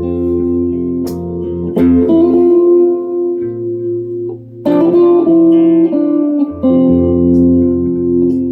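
Guitar improvisation: plucked chords and notes left to ring long, with new chords struck about one, two and five seconds in.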